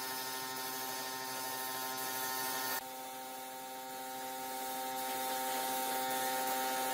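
Steady electrical or machine hum made of several fixed tones over a hiss. It drops suddenly in level and tone about three seconds in, then slowly grows louder.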